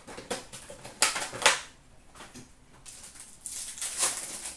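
A foil trading-card pack wrapper crinkling and tearing as it is ripped open by hand, in bursts of crackly rustling. The loudest bursts come about a second in and again near the end.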